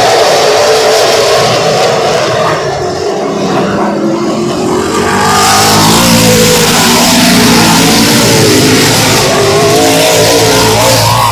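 A pack of Late Model Sportsman stock cars with V8 engines racing around the oval at full throttle, engine notes sliding up and down as the cars pass. The sound grows fuller and louder about five seconds in as the field comes past close by.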